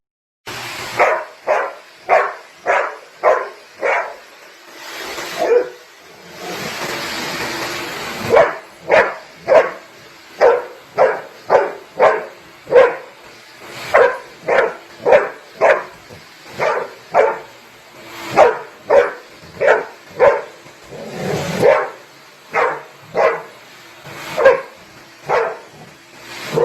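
A dog barking over and over, about two barks a second, broken briefly about six seconds in by a few seconds of rushing noise.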